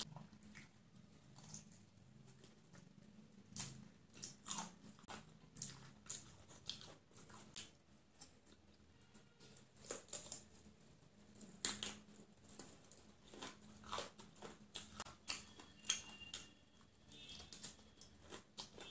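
Close-miked chewing of crispy fried food: irregular crunches and wet mouth clicks, sometimes several a second.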